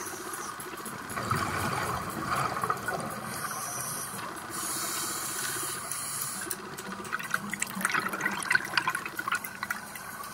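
Scuba exhaust bubbles gurgling and rushing past an underwater camera, rising in swells, with a stretch of crackling bubble pops later on.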